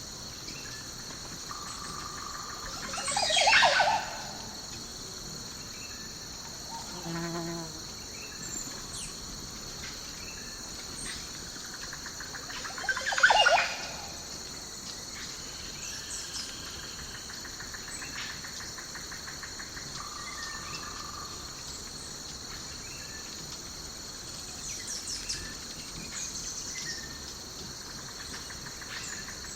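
Forest ambience: a steady high insect chorus with scattered bird chirps, and two loud calls about three and thirteen seconds in.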